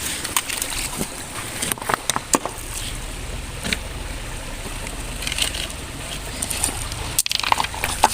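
Shallow stream water sloshing and splashing, with scattered small clicks and knocks, over a low steady rumble.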